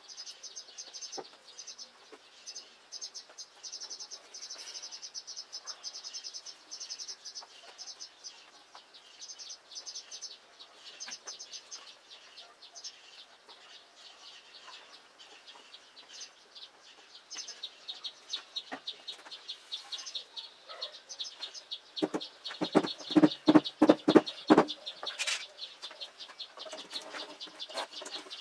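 Insects chirping in a steady, fast-pulsing high trill, with birds calling. About three-quarters of the way through comes a louder run of about six quick sounds in a row.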